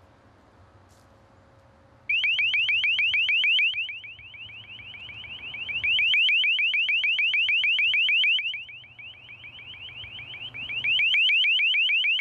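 Handheld LRAD acoustic device's horn loudspeaker playing a deterrent alarm tone: a loud, high-pitched warble sweeping up and down about ten times a second, starting about two seconds in. It drops in level twice and swells back.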